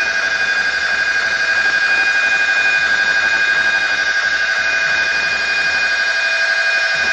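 Loud, steady electronic alarm-like tone holding several pitches at once, with a fast, even flutter in its loudness.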